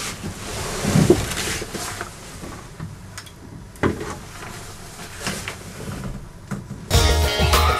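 Rustling and a few knocks and sharp clicks from a person shifting about in a small boat cabin bunk. Music starts near the end.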